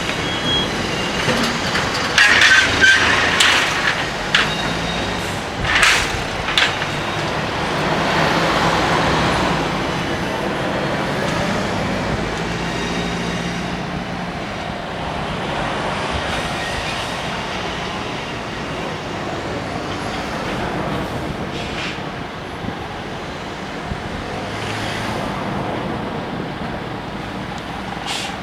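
Freight train moving over a level crossing on a freight spur line, a steady rumble with a run of sharp clanks and knocks a couple of seconds in, then fewer as it goes on.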